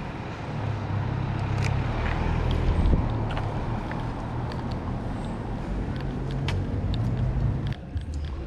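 City street ambience: a steady low traffic hum with a few faint clicks over it.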